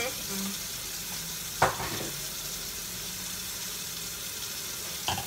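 Water running steadily from a kitchen tap, a continuous hiss, with a sharp knock about a second and a half in and a lighter knock near the end.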